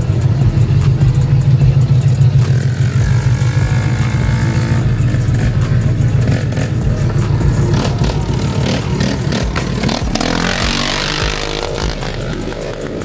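A vehicle engine running loudly with a deep, rapidly pulsing rumble, which eases off in the second half.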